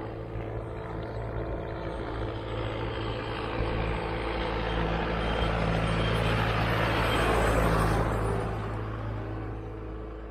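A farm tractor approaching along a dirt track and passing close by. The steady hum of its diesel engine grows louder and peaks with tyre noise on the track about eight seconds in, then fades.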